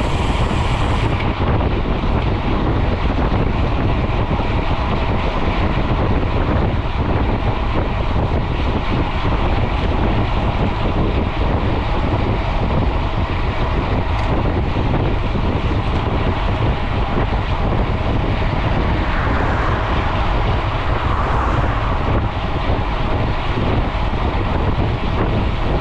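Steady wind noise buffeting a GoPro's microphone as a mountain bike is ridden at speed on the road, a loud even rumble.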